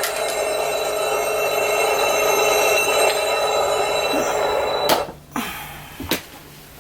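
Alarm-clock ringing imitated with the mouth by a sound-effects performer, a steady electronic-style ring that is cut off abruptly with a click about five seconds in, as if the alarm were switched off; a couple of soft knocks follow.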